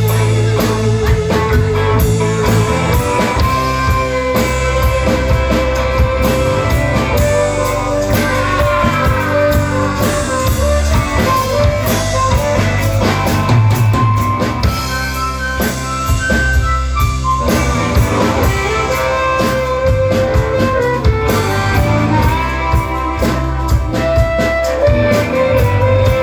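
Rock band playing an instrumental passage: a sustained, wavering guitar lead line over drums and a heavy low end.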